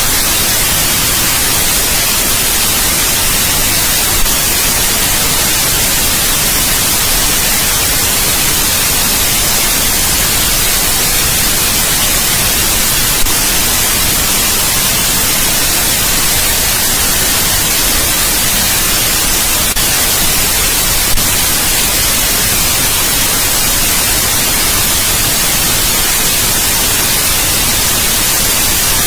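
Steady electronic white noise: an even, unbroken hiss, strongest in the highs, with three faint brief ticks along the way.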